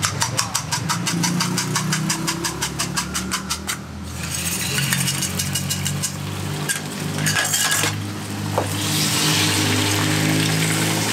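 A fork beats eggs against a ceramic bowl, clicking about five times a second. About four seconds in, the egg is poured into a hot oiled wok and sizzles, and the sizzle grows louder near the end as the pan is tilted. A steady low hum runs underneath.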